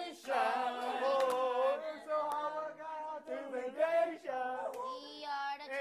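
A group of people singing together, with long held notes.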